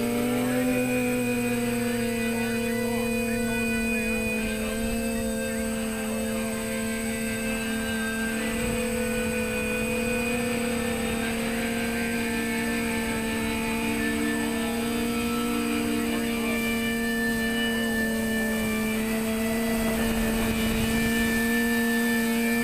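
TBS Discovery quadcopter's motors and propellers humming steadily in flight, heard from its onboard camera, the pitch wavering only slightly.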